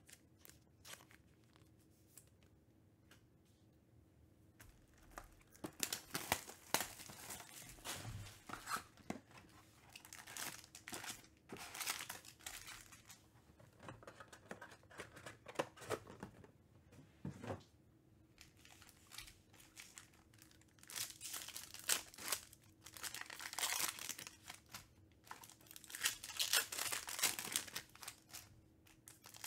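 Panini Prizm baseball card box opened and its foil packs torn open and crinkled by hand, in irregular bursts of crackling starting about five seconds in.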